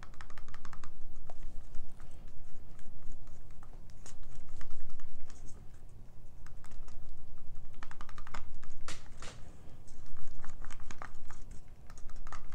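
A stir stick stirring white acrylic paint mixed with glue in a plastic cup, scraping and clicking quickly and repeatedly against the cup's sides and bottom, with a couple of brief pauses.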